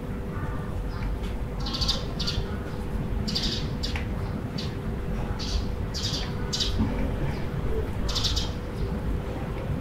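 Small birds chirping in short, high, bright notes, coming irregularly every half second or so, over a steady low hum and background rumble.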